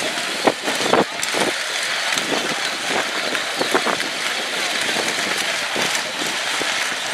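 Children's Power Wheels battery ride-on cars driving and pushing against each other on gravel: a steady rattling crunch of plastic wheels on stones, with scattered sharp knocks as the plastic bodies bump together, several close together in the first second or so.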